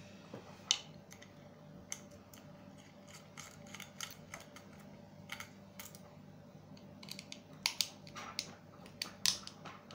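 Small tool clicking and scraping on the screws of a black metal laser-module housing as they are worked loose, in irregular light clicks with a few sharper ones. The screws are turning stiffly.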